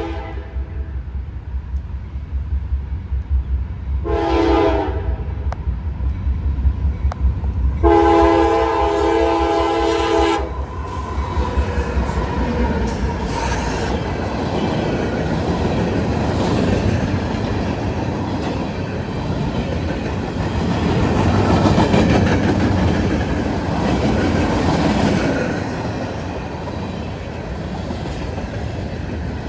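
CSX freight locomotive sounding its multi-chime air horn, a short blast about four seconds in and a longer one around eight to ten seconds, the end of a grade-crossing horn sequence. After that the train runs past, the locomotives and freight cars giving a steady rumble with wheels clacking over the rail joints.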